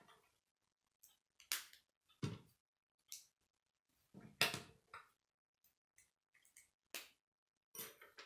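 Plastic K'nex rods and connectors clicking and clattering as they are handled and snapped together, in short irregular bursts about a second apart, the loudest a little after four seconds in.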